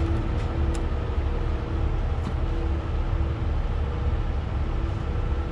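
Steady low rumble of an idling engine, with a faint hum that comes and goes and a few light clicks.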